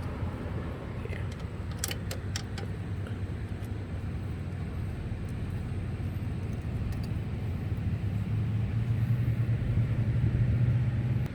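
A motor vehicle engine running with a steady low hum that grows louder over the last few seconds, with a few sharp clicks about two seconds in.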